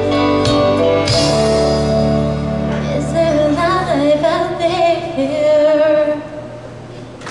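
A woman sings the last line of a song over an instrumental backing. The music starts alone, her voice comes in about three seconds in, and it fades away near the end.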